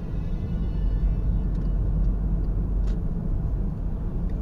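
Steady low rumble of a car driving at highway speed, engine and tyre noise heard from inside the cabin, with a few faint ticks.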